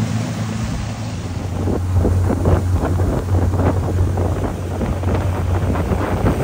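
Boat engine droning steadily under way, with wind buffeting the microphone and water rushing past the hull; the wind gusts grow rougher from about a second and a half in.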